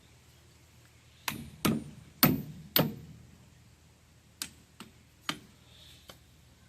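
Sharp metal-on-metal strikes with a ringing tail, like a hammer on tractor axle parts: four loud blows in quick succession, then three lighter ones a second or two later.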